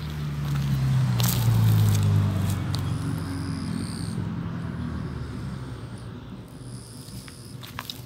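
A motor vehicle passing by: a low engine drone that swells to its loudest about two seconds in, dips slightly in pitch and slowly fades. Light crackles and a few short high chirps sound over it.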